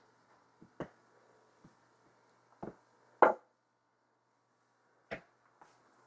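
Several irregular knocks and thumps, the loudest a little after three seconds in.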